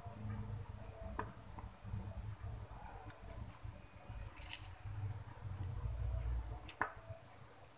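Small handling noises of a plastic piping bag being squeezed over paper cupcake liners in a tray: light rustles, a sharp click about a second in and another near the end, and a brief scrape midway.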